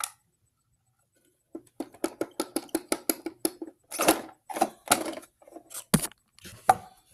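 A plastic toy garbage truck and a small plastic toy bin being worked by hand. First comes a run of quick plastic clicks, about six a second. Then, as the bin is raised on the truck's lifter arms, there is louder plastic clattering and knocking, with the sharpest knocks near the end.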